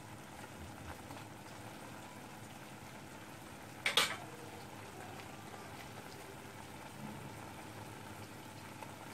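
Boiled bottle gourd with spices simmering faintly in a pan on the stove, a steady low bubbling. A single sharp clink cuts in about four seconds in.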